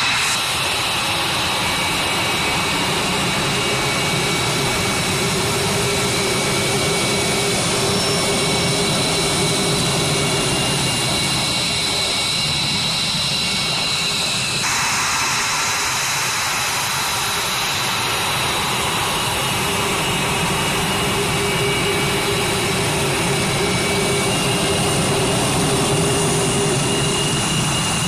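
Lockheed Martin F-22 Raptor's twin Pratt & Whitney F119 turbofan engines running at low taxi power: a steady jet rush with high whining tones over it. The sound shifts abruptly about halfway through.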